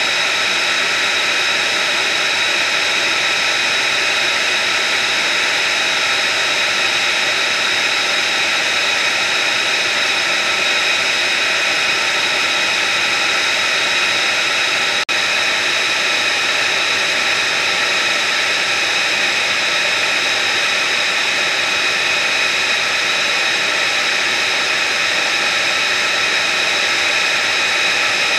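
Jet engine running steadily, a constant rush of noise overlaid with several steady high-pitched whining tones. The sound drops out for a split second about halfway through.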